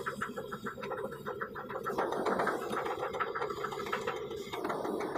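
Kobelco excavator's diesel engine running steadily, heard from inside the cab, with a fast, even mechanical ticking over the drone.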